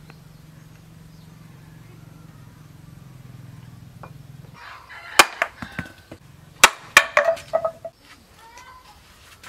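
Hand-forged axe chopping a small wooden block on a stump: several sharp cracks of the blade striking and splitting the wood in quick succession, starting about halfway through.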